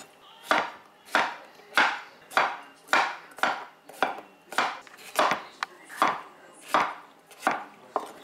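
Chef's knife chopping a red capsicum on a wooden cutting board: a regular knock of the blade through the pepper onto the board, a little under twice a second.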